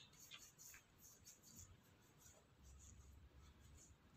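Near silence with faint soft rubbing: hands being cleaned with hand sanitizer.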